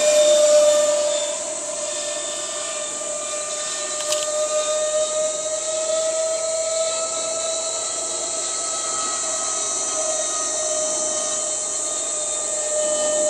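Radio-controlled model jet flying overhead: its engine gives a steady high whine that wavers slowly in pitch as the plane passes, slightly louder in the first second.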